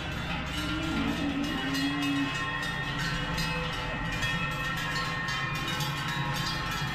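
Many large cowbells on a herd of walking cows clanging and ringing together in an irregular, continuous jangle, with a low held tone from about half a second to two seconds in.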